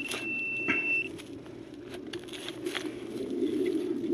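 A metal-detecting pinpointer probe sounds a steady high tone until about a second in, then cuts off. After that a hand trowel cuts and scrapes into dry stubble soil, with scattered crunches and clicks.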